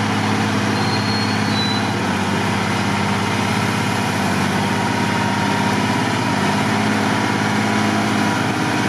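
Mercedes-Benz Unimog's diesel engine running steadily with an even, low drone while the truck sits stuck deep in mud.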